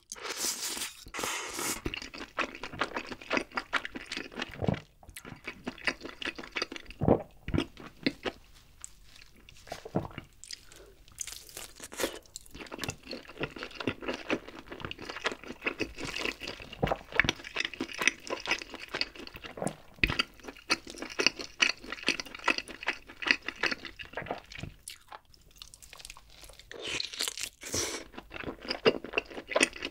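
Close-miked eating sounds: a man slurps and sips from a ladle near the start, then bites and chews a glazed grilled chicken leg, with many small, irregular crunchy, wet clicks.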